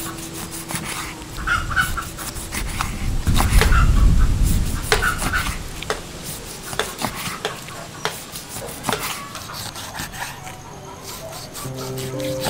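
A cleaver slicing raw beef on a round wooden chopping board, the blade cutting through the meat and tapping the board with many sharp clicks. A low rumble swells briefly about three seconds in.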